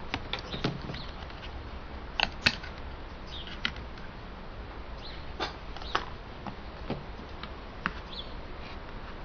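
Parts of a Sony VAIO VPC-M laptop being handled during disassembly: irregular light clicks and taps of small plastic and metal parts over a steady hiss, with two louder clicks a little over two seconds in.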